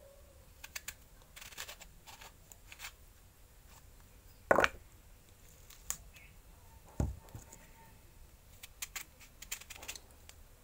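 A knife cutting a kaji nimbu lemon to squeeze for pickle: scattered small clicks and scrapes, with a sharp knock about four and a half seconds in and a duller thump about seven seconds in.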